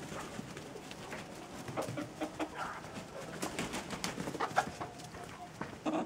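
Marans chickens making soft, short, low clucking calls, with scattered clicks among them.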